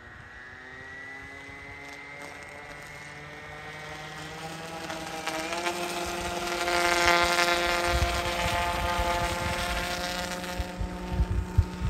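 Electric brushless motor and belt-driven three-blade propeller of a quarter-scale Gallaudet Scout radio-controlled seaplane whining. Its pitch climbs as the throttle is opened, jumps and gets louder about halfway through, and then holds for a fast run across the water on its floats, with spray hissing off the floats. The motor cuts out shortly before the end.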